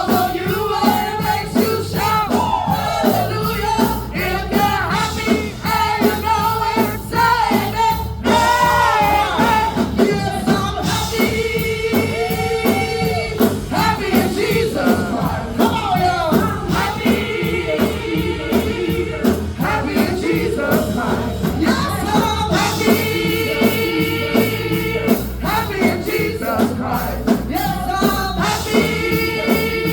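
Gospel worship music with singing over a steady drum beat.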